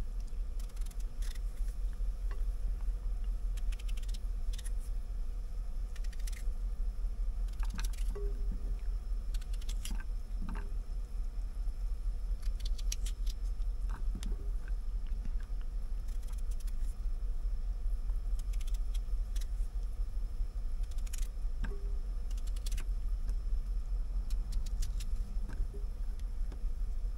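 Scattered light clicks and taps of small objects being handled, over a steady low hum.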